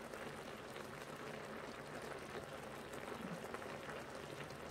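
Braised kimchi and pork simmering in its pan: a soft, steady bubbling with faint small pops.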